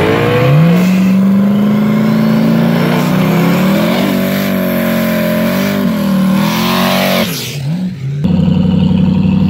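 A drag car's engine is revved up and held at high rpm at the starting line, its pitch wavering slightly. About seven seconds in the revs drop and the engine sputters for a moment, then it is brought back up and held high again.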